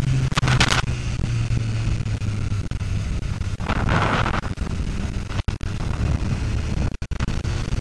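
BMW S1000RR's inline-four engine running at low speed, mixed with wind rush on the helmet-mounted microphone. A louder hiss of wind buffeting comes in briefly about half a second in and again around four seconds, and the sound drops out for a split second twice near the end.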